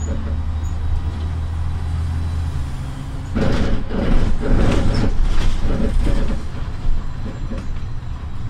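City bus heard from inside at the front while driving: a steady low engine drone, then a louder, rougher stretch of noise from about three to six seconds in.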